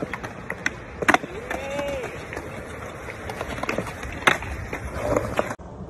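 Skateboard wheels rolling on concrete, with many sharp clicks and clacks from the board. A short voice call rises and falls about a second and a half in.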